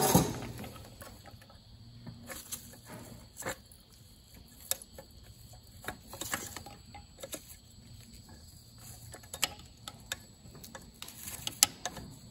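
Small metallic clicks and scrapes of needle-nose pliers gripping and bending the legs of a cotter pin in a tractor's band-brake shoe linkage, an irregular tick every second or so, over a faint low hum.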